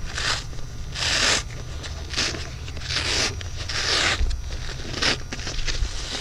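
Cut panels of a factory headrest cover being peeled off a foam-injected headrest core, ripping away from the bonded foam in about six short tears, roughly one a second.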